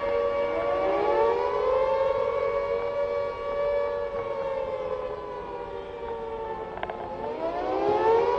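Air-raid siren wailing: several tones sound at once, climbing about half a second in and holding, then sinking away before climbing again near the end.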